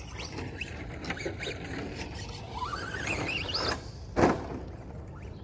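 Electric RC car's motor and drivetrain whining, rising steeply in pitch as it accelerates hard, then a single sharp thump about four seconds in.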